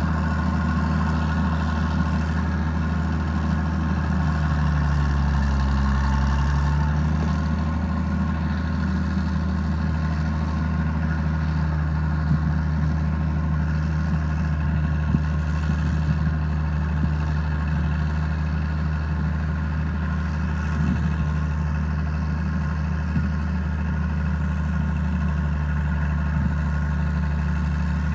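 Heavy diesel engine running steadily with a low, even drone, its pitch dipping briefly and coming back up about five seconds in, with a few faint clanks over it.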